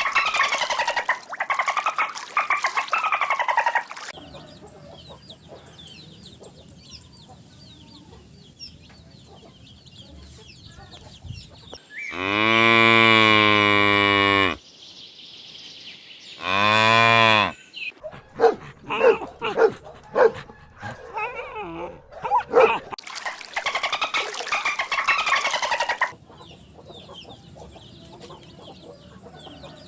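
Cow mooing twice: a long moo about twelve seconds in and a shorter one a few seconds later. Faint small-bird chirping runs underneath, with a quick series of short sharp calls after the second moo and stretches of dense chirping near the start and end.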